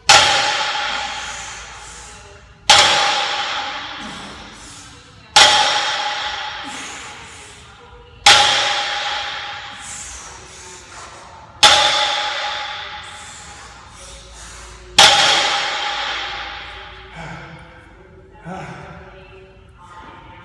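Loaded barbell with weight plates set down on the gym floor at the bottom of each deadlift rep: six sharp metal clangs about three seconds apart, each ringing out and fading over a second or two.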